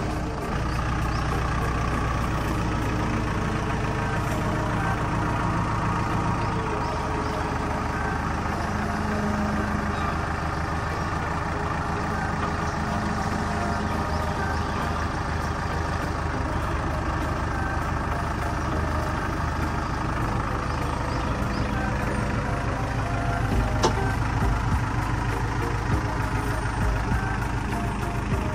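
A large vehicle engine idling steadily, its low note shifting slightly a few times, with a brief click near the end.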